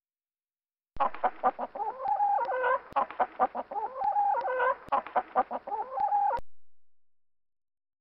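Hen clucking: runs of quick clucks broken by longer drawn-out calls, a recorded clip that cuts in abruptly about a second in and cuts off abruptly near the end.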